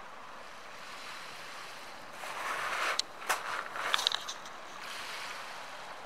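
Small waves lapping at a pebble shoreline: a steady soft wash that swells into a louder rush about two seconds in, followed by a few sharp clicks of pebbles knocking together around the middle.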